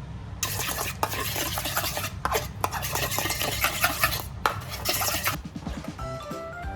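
A kitchen utensil scraping and clicking against dishware in a run of quick strokes, as in stirring or mixing, stopping shortly before the end. Music comes in near the end.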